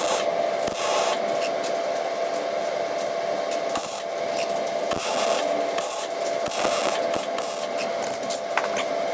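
Welding arc crackling and hissing steadily as bolts are welded together, with a faint steady hum beneath.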